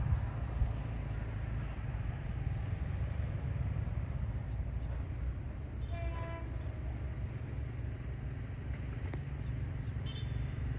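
Steady low rumble of passing road traffic, with one short vehicle-horn toot about six seconds in.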